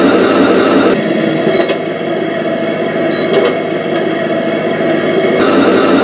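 Simulated tank engine sound played by a Heng Long Leopard 2 A6 RC tank's electronic sound unit through its small speaker. About a second in it switches abruptly to a quieter, different engine sound with a few clicks, and the louder engine rumble returns about half a second before the end.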